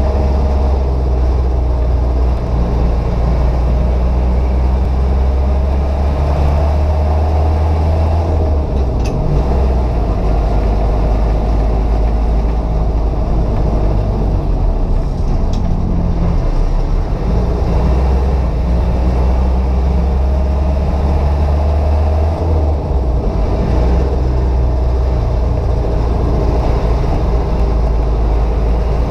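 Land Rover 88's engine running under way, with a loud, steady low drone and road noise. The engine note changes several times.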